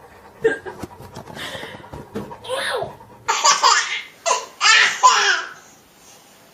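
A baby laughing in about three loud bursts, starting about three seconds in after a stretch of faint scattered sounds.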